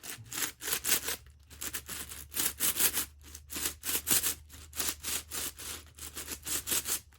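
Layers of a Shengshou 19x19 puzzle cube being turned by hand, the plastic pieces scraping and clacking in quick repeated strokes, a few a second.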